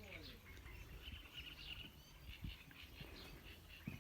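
Faint birds chirping, with a few soft low knocks.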